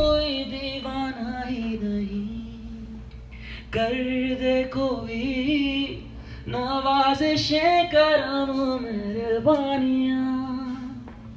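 A single voice singing a slow melody with long held notes, in three phrases broken by short pauses about three and six seconds in.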